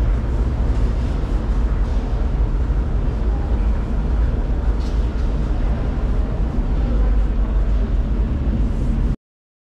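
Underground metro station ambience: a steady low rumble with faint footsteps, cutting off suddenly near the end.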